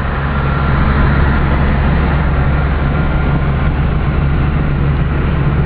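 A bus engine running steadily while driving, heard from inside the bus, with a constant low hum and road noise.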